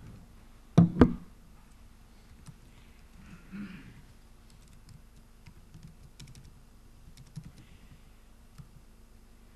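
Typing on a laptop keyboard: scattered faint key clicks. About a second in there are two louder, sharp thumps.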